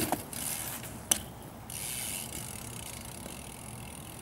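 Ratchet clicking from a BMX bike's freewheeling rear hub as the bike rolls, with a single sharp knock about a second in.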